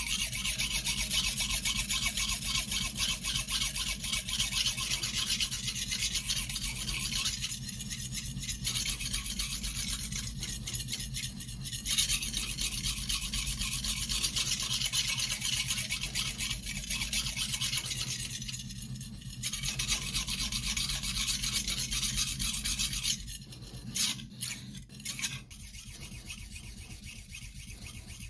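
Shun nakiri blade being hand-sharpened on a whetstone, rubbed back and forth in quick continuous strokes with a hissing scrape. There are brief pauses a few times, and the stroking stops about 23 seconds in, leaving a few scattered strokes.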